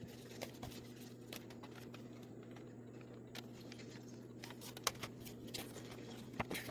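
Faint handling of mail packaging: scattered light clicks and taps over a steady low electrical hum.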